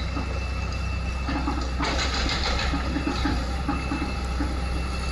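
Tata Hitachi excavator's diesel engine running steadily, a low continuous hum under a noisy mix of machine sound that grows brighter about two seconds in.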